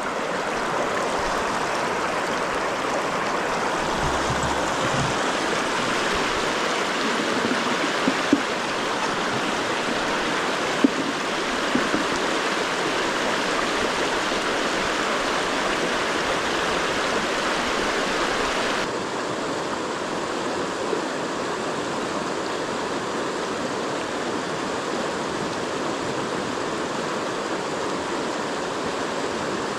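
Steady rushing of a river's flowing current, with a few brief knocks. The rush drops a little in level about two-thirds of the way through.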